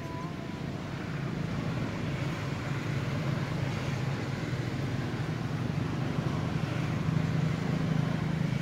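Steady low motor-engine hum that grows slowly louder over several seconds, as of a vehicle running nearby.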